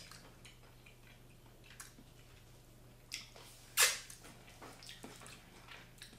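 Faint handling sounds of a jar and its plastic lid on a table: a few light clicks and taps, and a brief noisy scrape or rustle a little past halfway as the lid is picked up.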